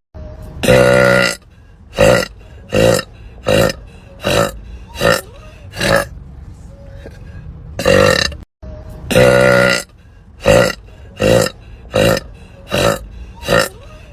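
A woman burping repeatedly: a long, loud burp, then five short burps in quick succession. About halfway through, the same run starts again with two long burps and five short ones, like a loop.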